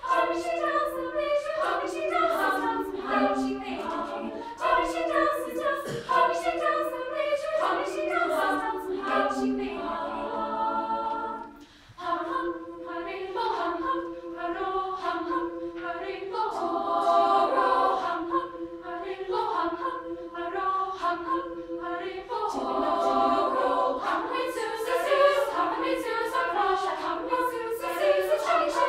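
Equal-voice choir singing in harmony, with a chord held for a moment and a brief break about twelve seconds in before the singing resumes.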